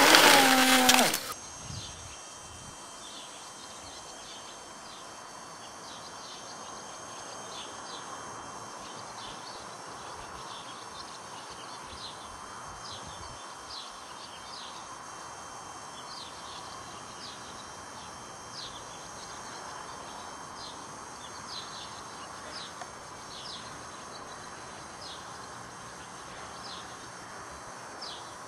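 A loud sound with a wavering pitched tone cuts off abruptly about a second in. Then small birds chirp: short, high, falling notes scattered irregularly over a soft outdoor hiss and a faint steady high whine.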